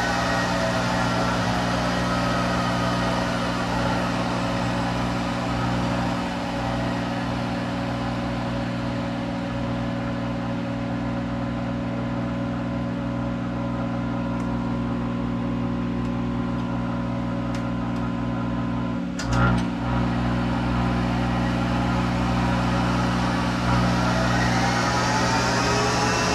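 Monarch 10EE lathe running on its thyratron-controlled DC spindle drive while it warms up after sitting idle for a month. The running pitch falls as the spindle slows near the start, holds steady at low speed, then rises again in the last few seconds as the spindle speeds up to about 2000 rpm. A single sharp knock about 19 seconds in.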